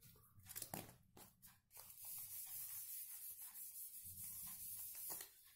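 Whiteboard eraser rubbing across a whiteboard, wiping off marker writing: a steady scrubbing hiss that starts about two seconds in and stops just after five seconds, preceded by a few light taps.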